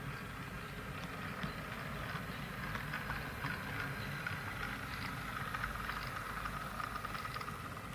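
Model train running along the layout track: a steady whine with many small rapid clicks.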